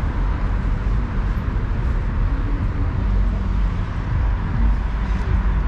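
Steady city street traffic noise from passing cars, an even wash of sound with a deep rumble underneath.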